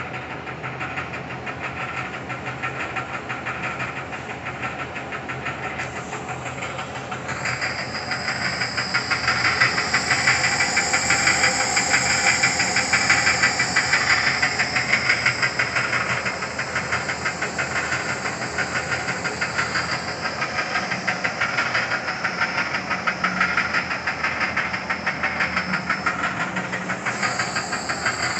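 Oliver Model 600 drill grinder running under power: its 2-horsepower motor and grinding wheel make a steady mechanical noise with a fast pulse. The sound grows louder and higher from about eight seconds in, then settles back after about sixteen seconds.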